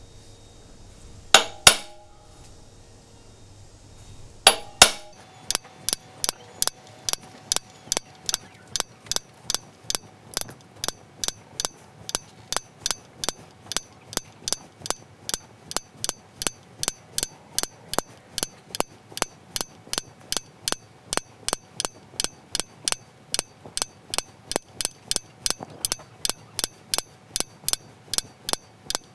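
A small hammer tapping a metal punch into the rim of a wooden bowl, stamping a decorative pattern: a few single taps, then from about five seconds in a fast, even run of taps, about three a second.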